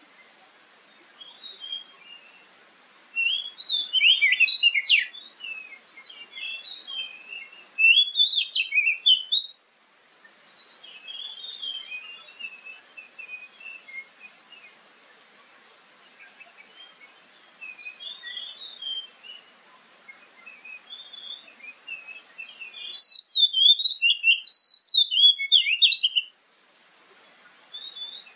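Oriental magpie-robin singing: quick, varied whistled phrases and twitters, with loud bursts a few seconds in, at about eight seconds and again near the end, and softer song between.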